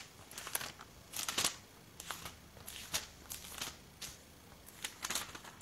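Thin Bible pages being turned and leafed through by hand: a series of short papery rustles and flicks, several a second.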